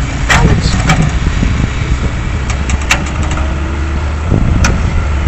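Excavator's diesel engine working under load as it pulls on an overturned slurry tanker, with wind rumbling on the microphone and a few sharp clicks.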